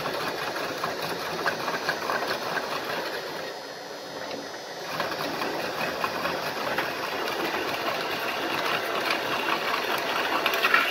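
Drill press running, its twist drill cutting through the steel flange of a hub dust cap, with a fast clatter. The cutting noise drops off for about a second and a half near the middle, then picks up again.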